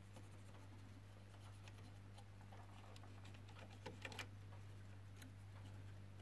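Faint light clicks and rubbing of a cotton bud and fingers working over the metal tape heads and guides of an old reel-to-reel tape deck, with a brief cluster of louder clicks about four seconds in. A steady low hum runs underneath.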